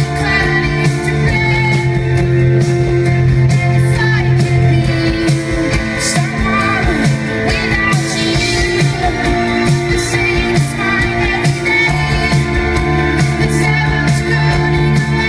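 Live pop-rock music from a piano-and-drums band: sustained piano or keyboard chords over a steady drum-kit beat with cymbals, and a singing voice.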